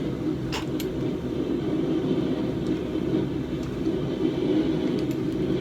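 Steady low roar of a running forge, with a faint click about half a second in.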